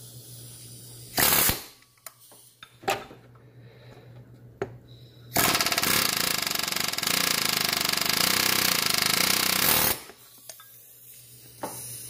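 Pneumatic air hammer driven against a stuck cooling-fan nut on the water pump, trying to break it loose: a short burst about a second in, a brief blip near three seconds, then a steady rapid hammering for about four and a half seconds from around five seconds in.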